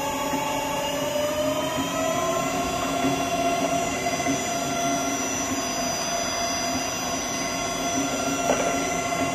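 Empty double sigma-blade kneader mixer running, its drive whining with several steady tones that rise in pitch over the first two seconds as the mixing speed is turned up, then hold steady. A light knock near the end.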